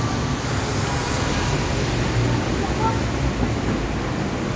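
Steady low rumble of street traffic, with indistinct voices in the background.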